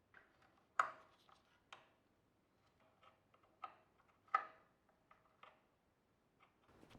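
Scattered clicks and knocks of a Nespresso De'Longhi coffee machine's parts being handled while it is taken apart, with two louder knocks, one about a second in and one about four seconds in.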